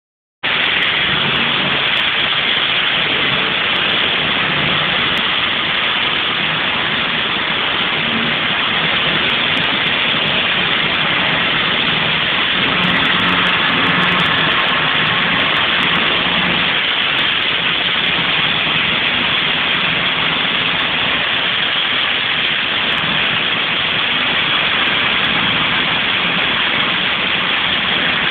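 Robotic hydro-blasting machine's high-pressure water jet hitting a ship's steel hull: a loud, steady hiss, with a low machine hum underneath.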